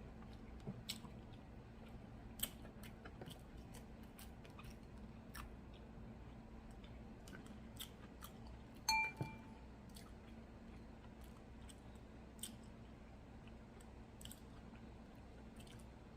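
Close-up chewing and crunching of a fried chicken and waffle sandwich, with scattered wet mouth clicks. A short ringing clink comes about nine seconds in, over a faint steady low hum.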